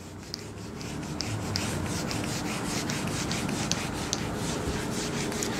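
Whiteboard eraser rubbing across a whiteboard, wiping off marker writing in quick repeated strokes.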